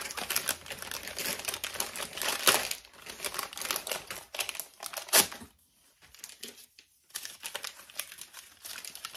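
Paper advent gift bag crinkling and rustling as it is pulled open and the contents are taken out. There are bursts of crackle, a pause of about a second and a half just after the middle, then more crinkling.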